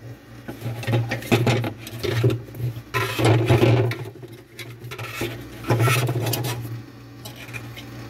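Hands handling a refrigerator's plastic evaporator fan assembly and motor, with irregular rubbing, scraping and clicks of plastic parts, over a steady low hum.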